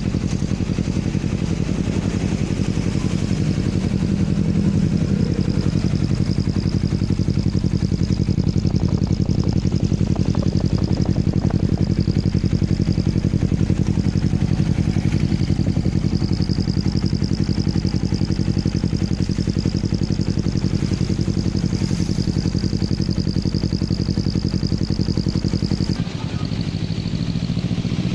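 Motorcycle engine running steadily near idle through an exhaust fitted with a turbo whistler, with a steady high whistle over the engine note. The engine note shifts briefly near the end.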